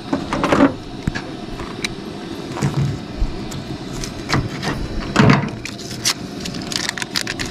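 Handling sounds: scattered small clicks and brief rustles of a butter wrapper being peeled off a stick of butter, over a steady low rumble.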